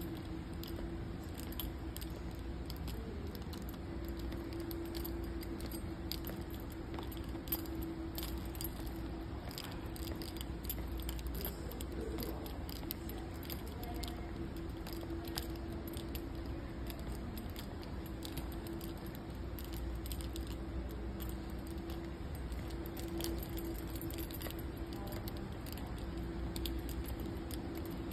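Steady low hum with a held tone, and many small clicks and jingles scattered throughout.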